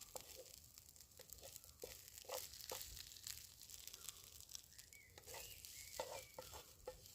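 Paella being spooned from the hot pan onto a plate: a faint sizzle from the pan with scattered scrapes and clicks of the spoon.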